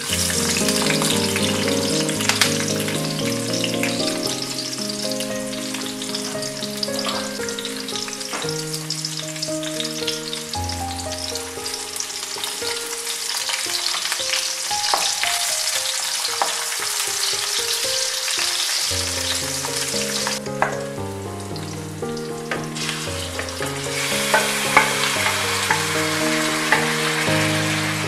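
Sliced onions sizzling in hot oil in a nonstick wok, stirred with a wooden spatula that clicks against the pan. The sizzle starts suddenly as the onions go in, thins for a few seconds after the middle and picks up again near the end. A background music melody runs underneath.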